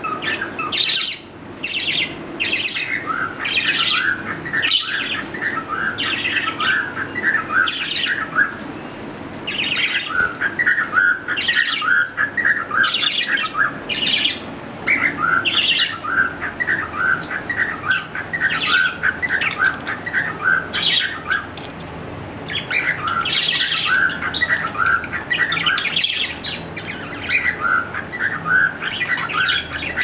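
A group of budgerigars chattering: rapid, overlapping short chirps and harsher squawks, near continuous with a few brief lulls.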